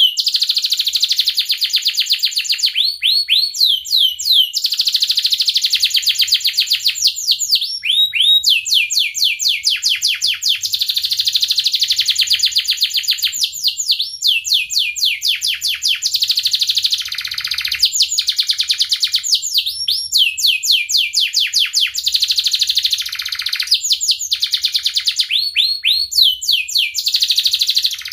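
A domestic canary singing a long, nearly unbroken song of fast, high-pitched trills: quick runs of repeated falling notes that switch from one trill to the next every second or two, with only brief breaks.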